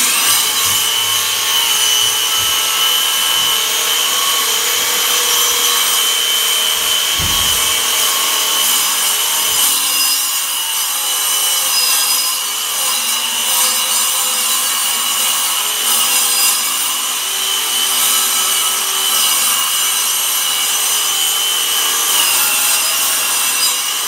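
Electric circular saw starting up and running steadily with a high motor whine while it cuts through wooden boards.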